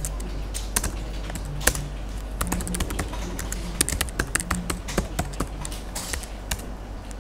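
Typing on a computer keyboard: an uneven run of key clicks as a command is typed, over a steady low hum.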